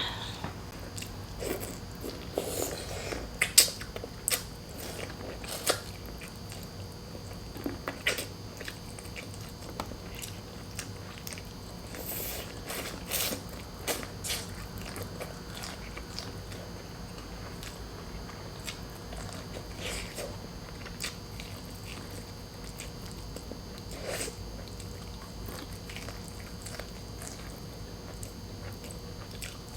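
A person chewing and eating, with wet mouth clicks and smacks. They come often in the first half and thin out later.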